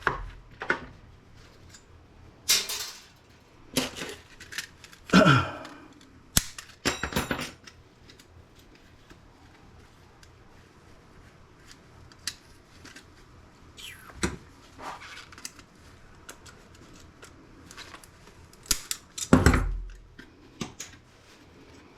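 Small salvaged laptop parts of metal and plastic being handled and dropped onto sorting piles: scattered clicks and short clatters, busiest in the first several seconds and again near the end, with quiet gaps between.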